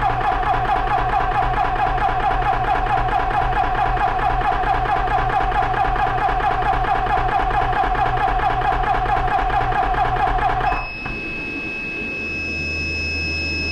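Benjamin Traveler 4500 PSI portable PCP air compressor running steadily under load as it fills an air rifle, then shutting off suddenly about eleven seconds in as its automatic shut-off trips at the set fill pressure. Its cooling fan keeps humming after the pump stops.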